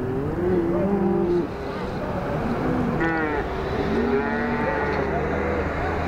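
A herd of beef cattle mooing, many calls overlapping one after another, over the steady low sound of a vehicle engine running. A box truck passes close by near the end.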